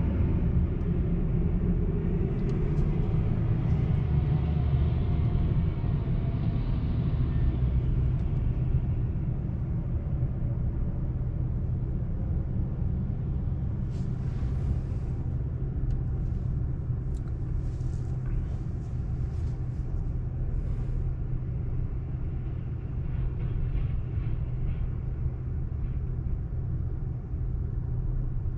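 Road and tyre noise inside an electric car's cabin while driving: a steady low rumble, with a few faint ticks and clicks about halfway through.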